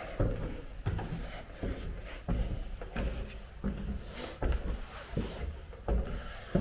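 Footsteps of a person walking at a steady pace, about ten evenly spaced steps with some scuffing between them.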